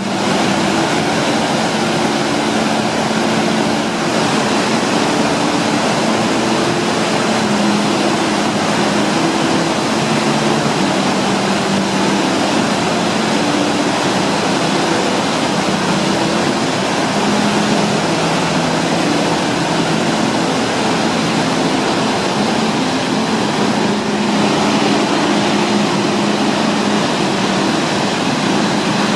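Steady, loud rushing roar of a waterfall, with a soft background music melody underneath.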